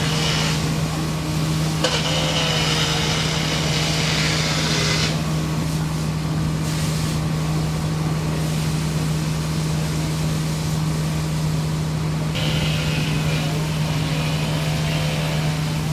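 An engine running steadily, a constant low drone, with stretches of hissing noise about two seconds in and again near the end.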